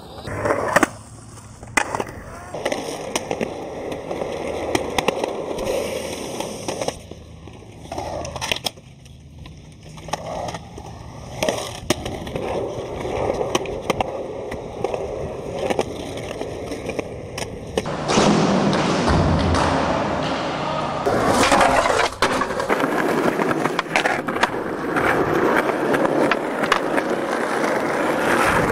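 Skateboard wheels rolling on hard ground, broken by repeated sharp clacks of the board popping and landing; the rolling gets louder about two-thirds of the way through.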